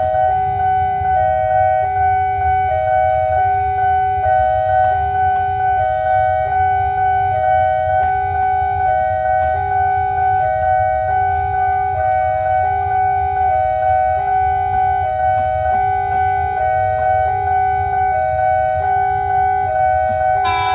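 Railway level-crossing warning alarm sounding: an electronic signal whose two lower notes take turns about every two-thirds of a second over a steady higher tone, warning that a train is approaching. A low rumble of waiting traffic runs underneath, and there is a sharp click near the end.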